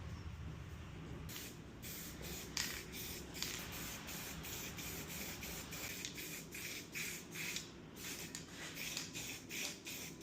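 Hand sanding: the abrasive paper rubs over a workpiece in quick back-and-forth strokes, giving a rhythmic scratchy hiss of about two or three strokes a second that starts a little over a second in.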